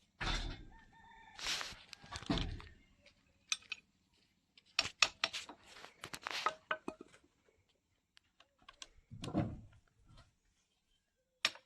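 A rooster crowing in the first couple of seconds, then a run of sharp metal clicks and clinks from tools on the motorcycle.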